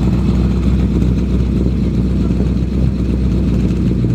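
Siata 208 CS Balbo coupé's Fiat 8V two-litre V8 idling steadily through its twin exhaust pipes.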